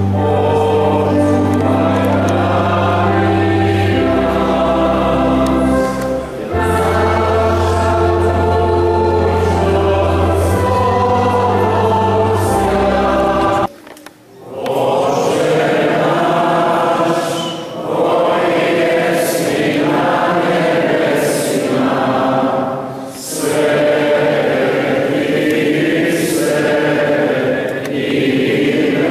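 A group of voices singing a church hymn together over held deep bass notes that change every few seconds. About halfway through the sound breaks off briefly, and the singing resumes without the deep bass, in phrases with short pauses between them.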